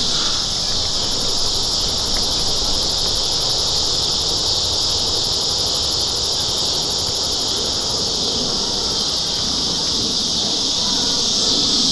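A steady chorus of insects in summer vegetation: a high, continuous trill that holds the same pitch and level throughout, over a low rumble.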